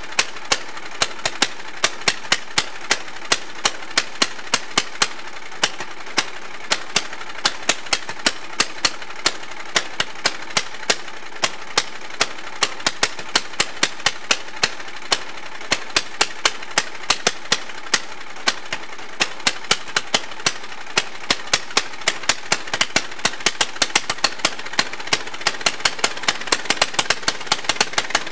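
Single-cylinder lawn tractor engine running at high revs because its governor is seized, a runaway the owner could not easily stop. Sharp regular pops, about three a second, over a steady drone; the pops come faster near the end.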